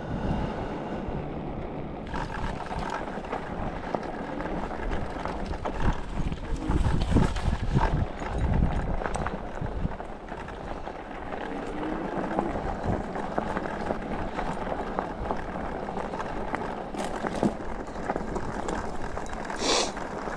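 Riding an electric bike: steady rumble of wind on the microphone and tyre noise, with a few knocks over the ground and a short hiss near the end.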